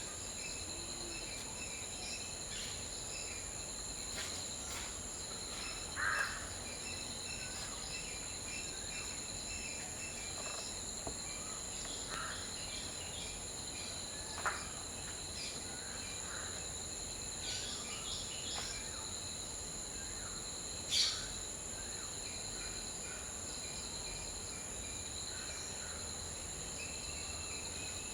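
A steady high-pitched insect chorus: continuous buzzing, plus a pulsing cricket-like trill that drops out now and then. Short bird calls and chirps come in here and there over it, the loudest about six seconds in and again about twenty-one seconds in.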